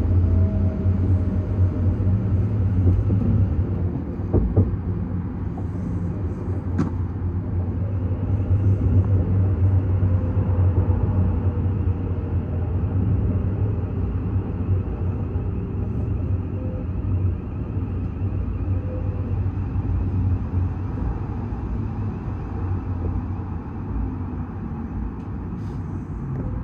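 Inside a moving electric passenger train: a steady low rumble of wheels on the track, with a couple of brief clicks and a faint tone that slowly falls in pitch as the train slows down.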